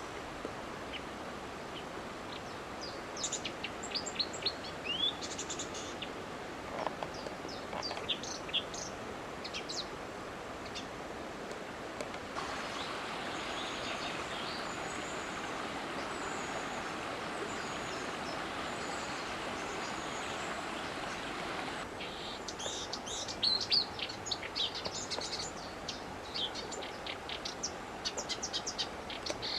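Wild birds chirping in quick clusters of short high calls, over a constant background hiss. For about ten seconds in the middle the chirps stop and a steady rushing noise takes over, then the chirping comes back busier near the end.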